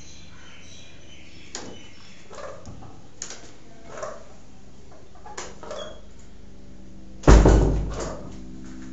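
Peahen giving short clucking calls, about half a dozen spaced a second or so apart, then a sudden loud thump about seven seconds in that fades over most of a second.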